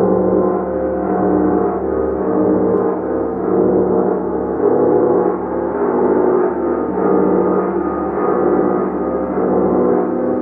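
A gong played continuously, building a dense wash of many overlapping sustained tones. The sound swells and eases in gentle waves about once a second, with no distinct single strikes.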